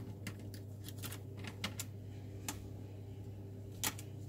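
Light, irregular clicks and ticks of a small screwdriver against the plastic cable connectors and casing of an opened laptop as the ribbon-cable connections are released, with one sharper click near the end.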